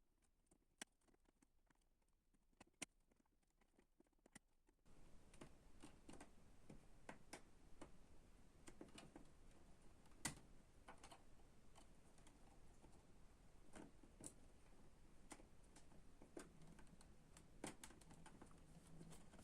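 Faint, scattered clicks and taps of 3D-printed PETG wedges and sidebars being fitted together by hand. A few isolated clicks in near silence give way, about five seconds in, to a faint hiss with frequent small clicks.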